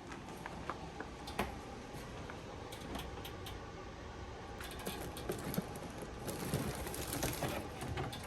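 Irregular light clicks and taps with some rustling, growing busier about halfway through, like small objects being handled.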